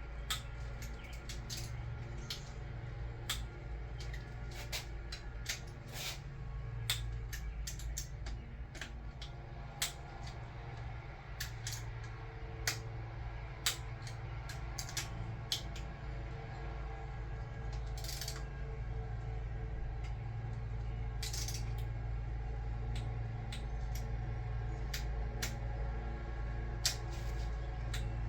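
Torque wrench ratcheting in scattered sharp clicks as the camshaft cap bolts on a Toyota 2JZ cylinder head are tightened down, over a steady low hum.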